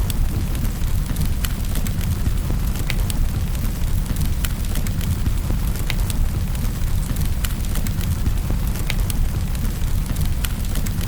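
Wood fire crackling in a fireplace, with irregular sharp pops over a steady low rumble and the hiss of rain.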